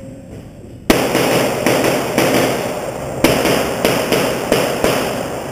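Rapid 9mm pistol fire, about three shots a second, each shot followed by a long echo off the concrete walls of an indoor range. The first shot comes about a second in.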